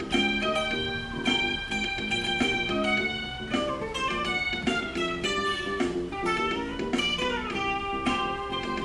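Fender Stratocaster electric guitar playing funk lead lines of quick single notes and short runs over a funk backing track.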